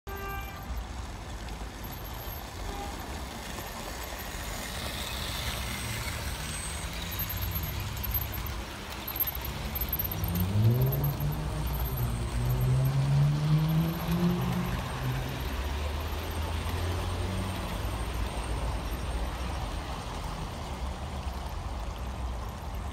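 Bachmann OO gauge model diesel locomotive running past with its coaches on garden railway track. Its drive gives a pitched hum that rises in pitch and is loudest for a few seconds around the middle as it passes close, over a steady low rumble.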